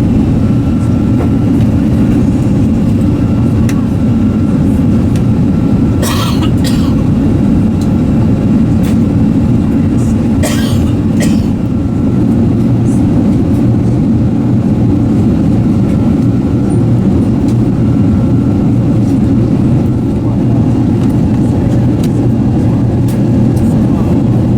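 Airbus A380 cabin noise heard from a main-deck seat: a steady, loud, low drone of the Rolls-Royce Trent 900 engines and airflow, with a couple of brief rustles or clicks partway through.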